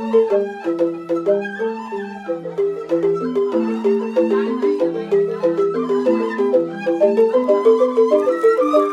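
Rindik, Balinese bamboo xylophones, playing a fast, steady run of struck notes in an interlocking melody.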